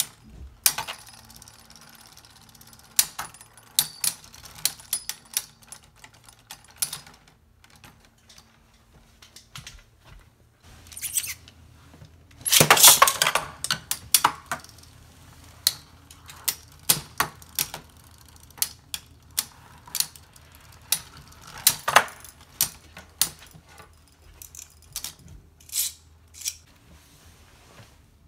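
Beyblade spinning tops clashing and skittering in a plastic stadium: a run of sharp clicks and knocks, with a dense rattling clatter about halfway through. Later come scattered clicks and knocks as the tops and the launcher are handled.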